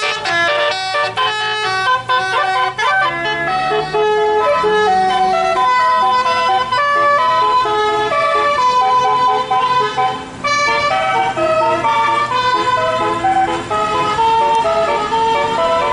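Indonesian bus telolet basuri horn playing a melody: a quick run of steady pitched notes, one after another. The low hum of the bus engine runs underneath and rises briefly a few seconds in.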